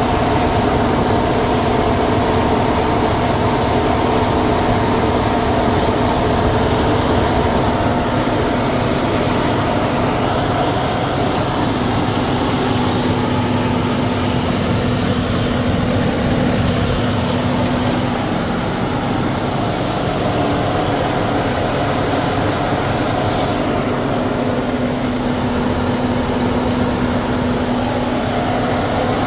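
Volvo XC90's 3.2-litre inline-six engine idling steadily, a low rumble with a few steady tones over it.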